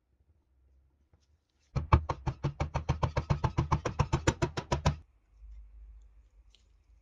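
A restored Roulomat Senior 60 coin-counting machine runs briefly. Its mechanism makes rapid, even clicking, about nine clicks a second over a low hum, starting about two seconds in and cutting off suddenly about three seconds later.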